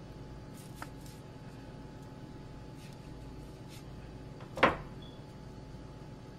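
A kitchen knife on a plastic cutting board while strawberries are hulled: a few faint taps and clicks, then one sharp knock of the knife on the board about four and a half seconds in, over a steady low hum.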